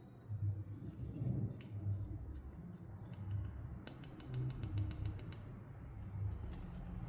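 Plastic toy pieces and packaging being handled, making small clicks and rustles, with a quick run of ticks about four seconds in. A steady low hum runs underneath.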